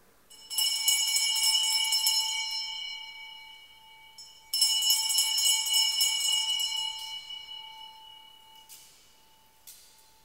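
Altar bells rung twice, about half a second in and again about four and a half seconds in, each peal ringing on and fading away. They mark the elevation of the chalice at the consecration of the wine during Mass.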